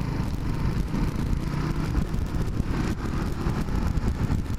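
Motorcycle engine running steadily while riding, with wind rumbling over the microphone.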